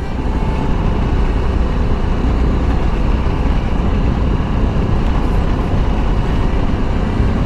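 Steady wind and road noise from a motorcycle under way, strongest in the low rumble, as heard on the rider's microphone.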